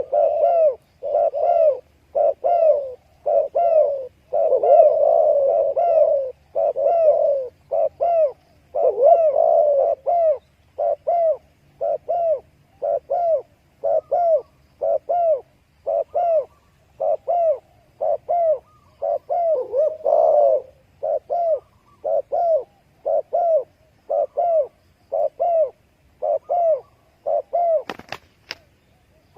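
Spotted dove cooing: a long run of short, soft coos repeated a little more than once a second. A sharp click sounds once near the end.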